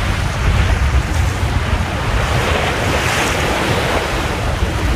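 Wind buffeting the microphone with a heavy rumble, over the rush of sea water along a small sailboat's hull as it sails through choppy water; a louder wash of water swells about three seconds in.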